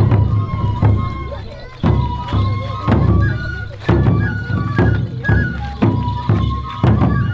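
Japanese folk festival music: a big drum struck heavily about once a second, with lighter strokes in between, under a high flute melody.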